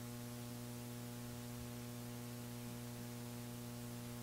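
Steady electrical mains hum, a low drone with a ladder of fainter higher tones above it, over a faint hiss.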